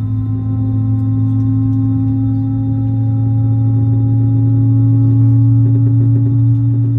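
Loud steady drone of an Airbus A321's machinery heard inside the cabin: a deep hum with several held tones, some slowly rising in pitch as the level gradually grows.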